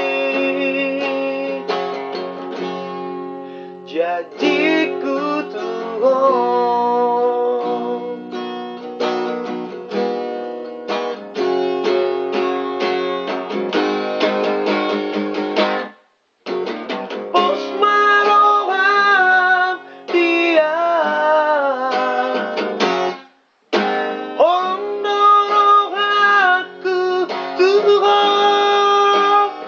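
Acoustic guitar being played, with a man singing along. The sound cuts out completely twice, briefly each time, about halfway and about three-quarters of the way through.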